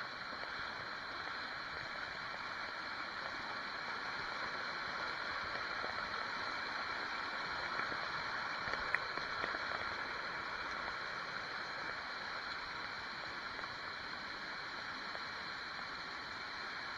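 Shallow river water rushing over rocks and pebbles in a steady hiss, with a faint click about nine seconds in.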